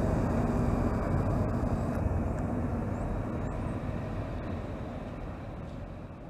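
An Alstom Citadis light-rail tram rolling away around a curve, its running noise fading steadily. A faint steady hum from the tram dies out about two seconds in.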